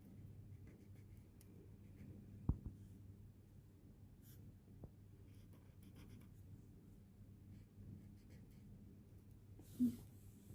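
Faint scratching of drawing on paper over a low steady hum, with a sharp tap about two and a half seconds in and another near the end.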